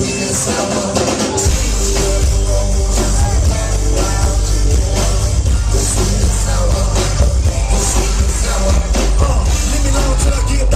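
A live rock band playing loud, with electric guitar, drums and vocals. Heavy bass and kick drum come in about a second and a half in and carry on.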